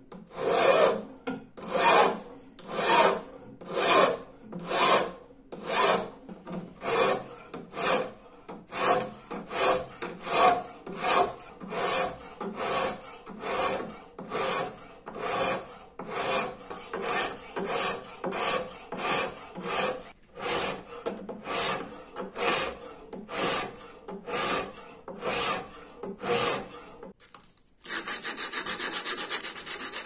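Hand file drawn along the bevel of a clamped XC75 steel knife blade in a filing jig, a rasping stroke about every three-quarters of a second. Near the end it changes to a faster, continuous scrubbing.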